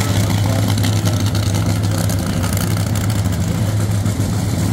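Nostalgia funny car's engine idling steadily, a low even note with a rough crackle on top.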